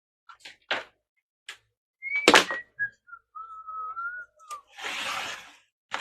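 A few light clicks and one loud thunk from handling, while a person whistles a few short notes, the tune stepping down and then rising a little. A short hiss comes near the end.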